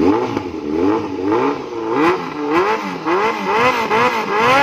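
Kawasaki Z900's inline-four engine revved in repeated short throttle blips through a custom stainless header and aftermarket silencer. The pitch rises and falls about twice a second, up from a steady idle.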